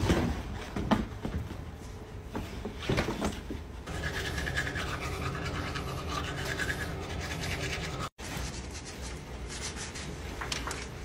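Eating sounds with a fork, then a few seconds of teeth being brushed with a toothbrush, a steady scrubbing. After a brief cut, bedding rustles as a bed is made.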